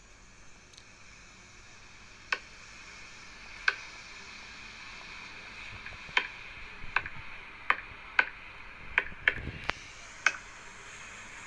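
About ten sharp, irregular clicks, two spread apart and then a quicker cluster in the second half, over a steady faint hiss, with one low thump among them.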